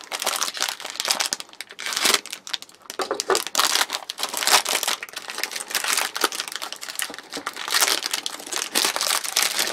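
Green ration pouch of biscuits being torn open and handled: a dense, irregular run of crinkling and rustling packaging.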